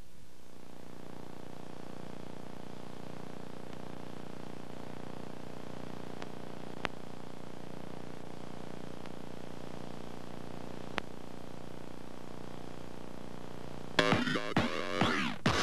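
Background music: a steady held synthesizer chord, with two faint clicks partway through; louder, busier music comes in near the end.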